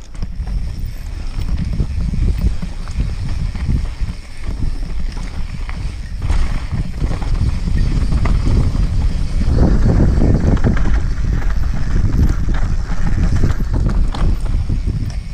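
Mountain bike riding fast over a rough dirt singletrack: tyres, chain and frame rattling and knocking over roots and stones, over a steady low rumble of wind buffeting the rider's camera microphone. The rattling is heaviest about ten seconds in.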